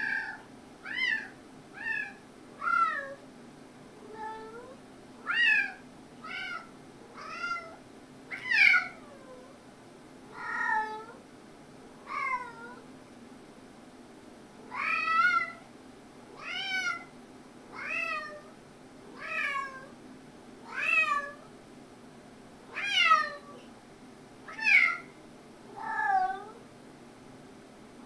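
A cat meowing over and over while play-wrestling with another cat: short calls, most falling in pitch, about one every second or two.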